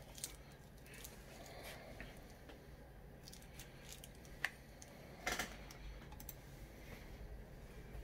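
Faint scattered clicks in a quiet room, with a sharp click about four and a half seconds in and a louder, slightly longer click just after five seconds.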